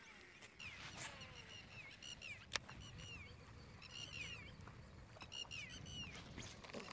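Faint bird calls: quick runs of short, high, falling notes repeated several times. A single sharp click comes about two and a half seconds in, over a low rumble.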